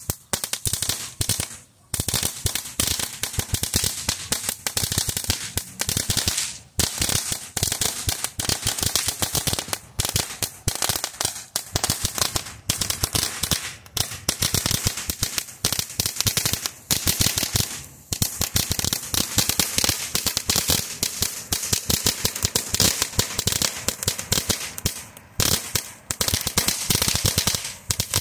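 Crackheadz novelty ground firework burning, throwing off a dense, rapid crackle of small pops, with a handful of short breaks.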